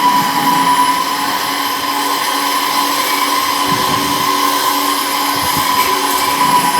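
Screw press-separator running while processing sawdust: a steady mechanical drone with a constant high whine.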